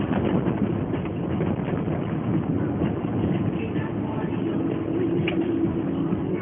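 Cabin noise of an Alfa Romeo 145 1.6 with its flat-four boxer engine, driving on a rough, patched city street: steady engine and tyre noise with a few light knocks and rattles from the car over the uneven surface.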